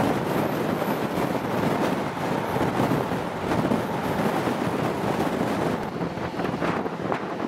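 HST passenger train running at speed: a steady rush of wheel and wind noise, with a few light clicks near the end.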